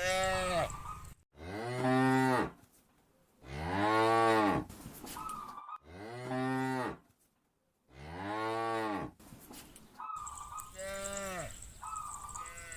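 Cows mooing in a series of about seven calls, each about a second long, rising then falling in pitch. The last few calls are shorter and weaker.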